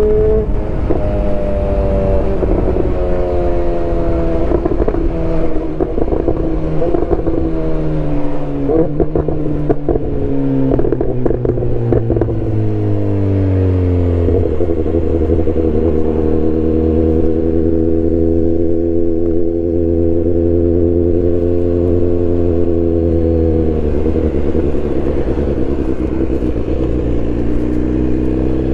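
BMW S1000R's inline-four engine running loud, its note falling over the first dozen seconds with a run of popping and crackling from the exhaust. It then holds a steady, even note, dips briefly and climbs slowly near the end.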